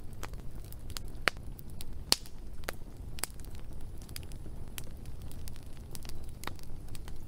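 Wood fire crackling: irregular sharp pops, a couple of them louder than the rest, over a low steady rush.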